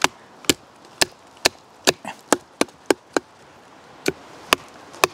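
Sharp, repeated knocks of a wooden baton striking the spine of a Demko Armiger 4 knife, driving the blade down into a short round of very hard, seasoned, knotty rock maple. About a dozen strikes come at roughly two a second, with a brief pause about three seconds in.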